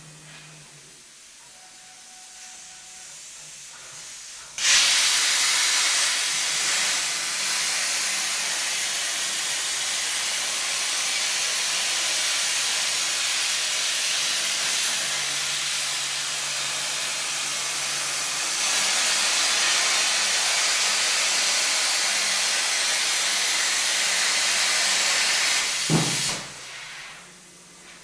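CNC plasma cutter torch cutting: a loud, steady hiss of the plasma arc and compressed air starts suddenly about five seconds in, runs for about twenty seconds and then dies away.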